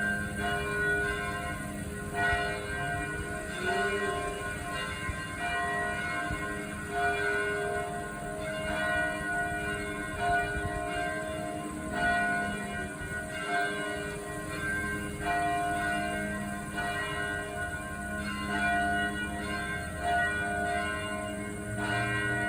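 Church bells ringing, a new stroke about once a second, each one ringing on under the next so that several bell tones overlap.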